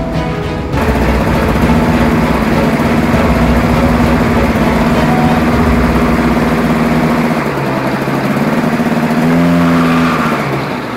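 Eurofly Minifox ultralight's engine running steadily as the open-cockpit plane taxis on grass. Its pitch drops about seven seconds in, rises briefly just before ten seconds, then falls away.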